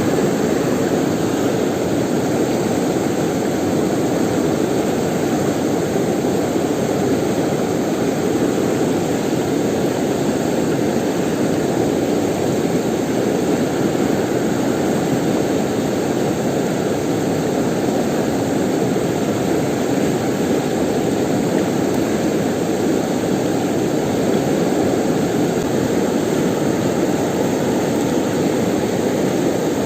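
Steady rush of a fast-flowing river, an even loud roar of water with no breaks.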